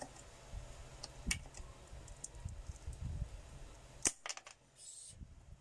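A scraper blade working under a small 3D print on an acrylic print bed: low scraping and handling with a few sharp clicks, then a loud sharp snap about four seconds in as the print pops free of the bed.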